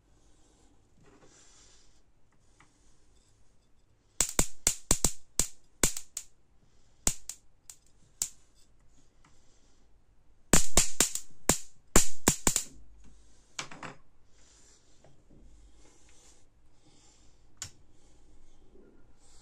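Electric sparks snapping as a screwdriver tip bridges the high-voltage output of a homemade capacitor-and-diode voltage multiplier run from 220 V mains. They come in three bursts of rapid, sharp snaps, starting about four, seven and ten and a half seconds in.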